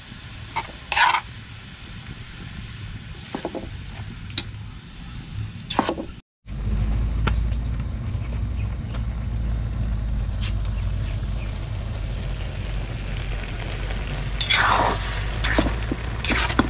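A metal spatula scraping and stirring shredded young coconut simmering in coconut water in a wok on a wood-fired stove: a few short scrapes, then after a sudden break a steady low rumble with a faint sizzle, and more scrapes near the end.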